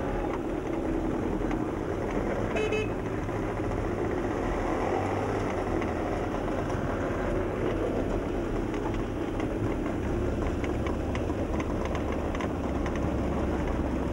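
Two-stroke engines of Velorex three-wheelers running as the convoy drives along, with a short horn toot about three seconds in. The low engine rumble grows louder near the end as a Velorex comes close.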